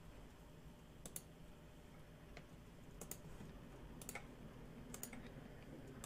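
A few faint, sharp clicks at a computer, irregularly spaced about a second apart, over a low steady room hum.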